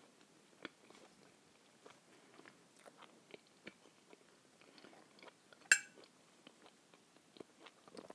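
Quiet chewing, with small clicks of a knife and fork cutting a mackerel-in-tomato-sauce open sandwich on a plate. A little before six seconds in comes one loud, ringing screech of cutlery against the plate.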